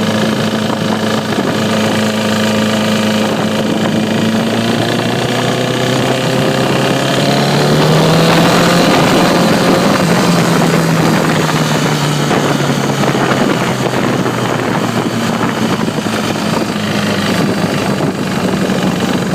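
Motorcycle engine idling, its revs rising gently about six seconds in, holding, then easing back to idle near the end. It is the engine whose ticking noise remains after a new cam chain tensioner, and the owner is unsure of the cause.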